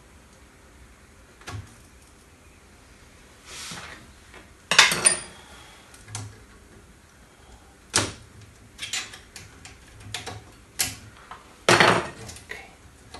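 Intermittent clicks, knocks and short scrapes of metal alternator parts being handled and worked on a workbench. The loudest strokes come about five seconds in and again near the end.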